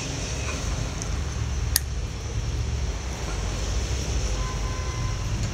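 Steady low background hum, with one sharp click a little under two seconds in as small steel shift-mechanism parts of a garden-tractor transmission are handled.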